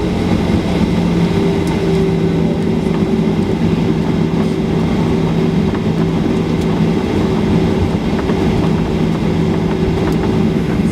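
Steady rumble of a Boeing 737-800 heard on the ground, its CFM56-7B engines running, with a low hum underneath. One of two hum tones stops about seven seconds in.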